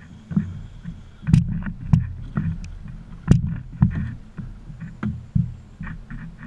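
Irregular knocks and thumps against a small fishing boat's hull as it drifts, over a low rumble, with a few sharper knocks standing out.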